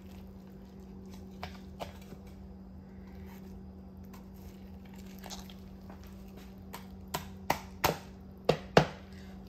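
Knife chopping a cooled, boiled whole chicken on a cutting board: a couple of light knocks about two seconds in, then five sharp knocks in quick succession near the end.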